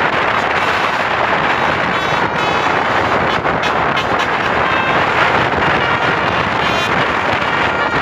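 Steady rush of wind on the microphone over the noise of an approaching tour bus, with brief faint notes of its Basuri 'telolet' multi-tone air horn coming through a couple of times.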